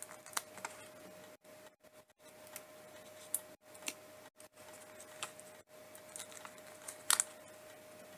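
Faint scattered taps and rustles of paper and card being handled as a cut-out paper tree with sticky pads on its back is pressed onto a greeting card, the sharpest click about seven seconds in. A thin steady hum runs underneath.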